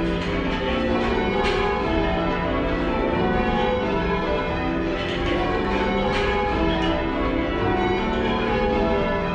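Change ringing on a light ring of ten church bells, heard from inside the ringing room below them: an unbroken stream of overlapping bell strikes, rather quiet and slightly mushy.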